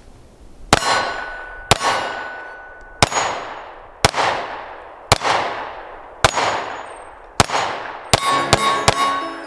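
Glock 43X 9mm subcompact pistol firing about ten shots, roughly one a second and then three quicker shots near the end, each sharp crack trailing a long echo. Steel plate targets ring on some of the hits.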